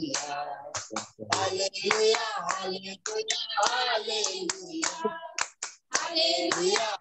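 A small group of women singing a worship song together while clapping their hands, heard over a video call.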